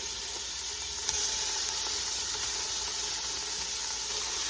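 Beef sizzling in a hot pot, a steady frying hiss that gets louder after a click about a second in.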